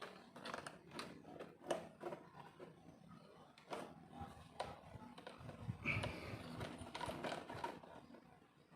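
Small plastic clicks, taps and scraping as the clip-on parts of a car instrument cluster are pried and pushed loose by fingernail, with a busier run of scraping and rattling about six seconds in.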